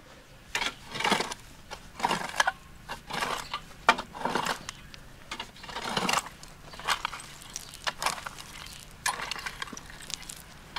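Metal-tined garden rake scraping and dragging through loose dirt and small stones, in repeated strokes about one or two a second.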